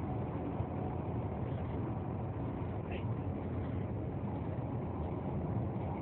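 Steady road and engine noise of a car driving on a highway, heard from inside the cabin.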